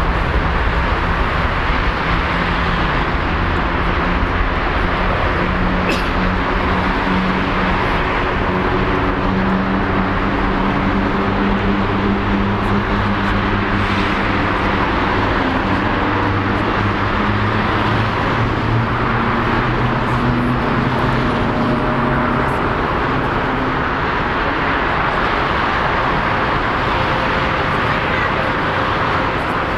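Steady airport jet noise: an even roar of jet engines with low engine hums slowly drifting in pitch. It holds at one level and does not build.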